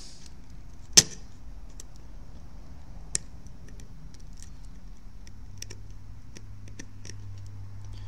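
Metal tweezers picking and scraping at glue on a headset's circuit board: a scatter of small sharp clicks and ticks, with one louder click about a second in.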